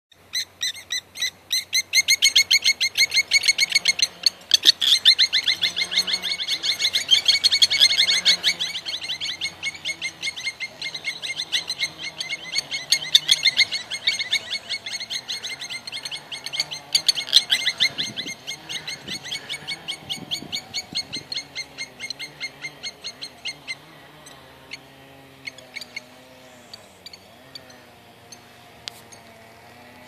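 Kiewiets (lapwings) making a racket of alarm calls at an intruder close to their nest and chick: a fast, continuous run of loud, repeated piercing calls, several a second, that thins out to scattered single calls in the last few seconds.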